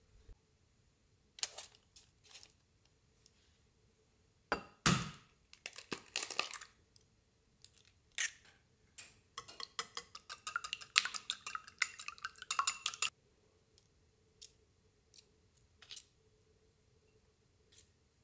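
Clinking and clattering of kitchenware in irregular bursts, busiest from about four and a half to thirteen seconds in, with some brief ringing clinks.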